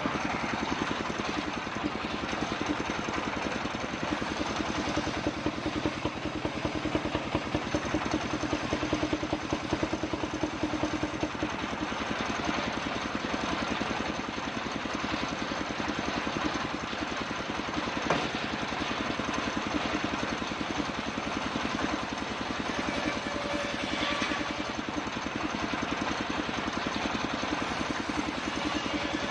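Engine-powered circular saw machine running steadily: a continuous pulsing engine drone with a faint steady high tone above it.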